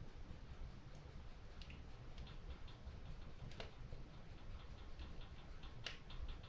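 Wood fire crackling in a stone fireplace. Scattered small ticks and sharp pops sound over a low steady rumble, with the loudest pop a little past the middle and another near the end.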